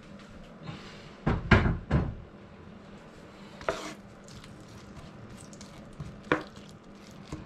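Wooden spoon knocking and scraping against a wok while stirring chopped onion in oil: a cluster of knocks in the first two seconds, then single knocks near four and six seconds in.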